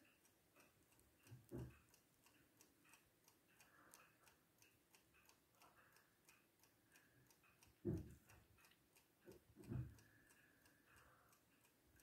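Faint, steady ticking of a restored antique mantel clock's brass mechanical movement, running. A few soft thumps break in, twice in the second half louder than the ticking.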